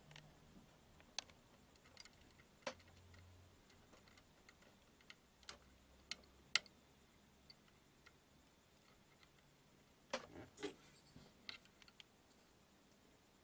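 Sparse light metallic clicks and ticks of a hand tool against the horizontal IC and its aluminium heatsink on a TV circuit board, as the IC is fitted. The loudest click comes about six and a half seconds in, and a short cluster of clicks about ten seconds in.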